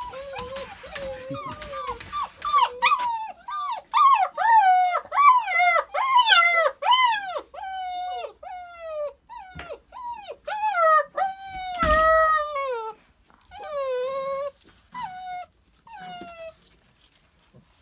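A litter of nine-week-old puppies whining and yelping, many short high calls that rise and fall in pitch, often several at once. The calls thin out toward the end and stop about a second before it.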